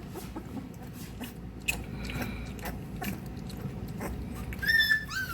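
A three-week-old XL American Bully puppy mouthing and chewing at a dose of oral dewormer, making a run of small wet smacks and clicks. Near the end he gives a short, high whimper that falls in pitch.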